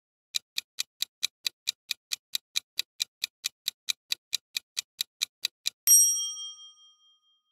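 Quiz countdown timer sound effect: a clock ticking about four and a half times a second, then a bright bell chime about six seconds in that rings out for about a second, marking time up and the answer reveal.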